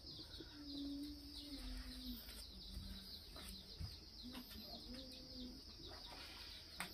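Faint bird calls: a string of low held notes, each about half a second to a second long and shifting in pitch, over many quick high chirps.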